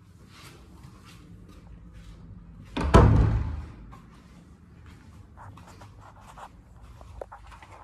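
One loud thump about three seconds in, dying away over most of a second, amid soft scuffs and handling noise as a handheld phone is carried through the rooms.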